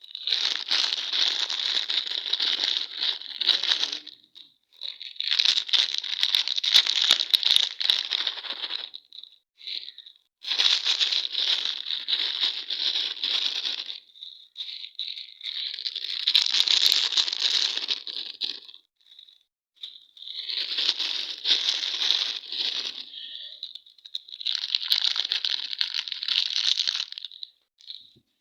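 Candy wrappers being crinkled and torn open by hand, in about six crackly bursts of a few seconds each with short pauses between.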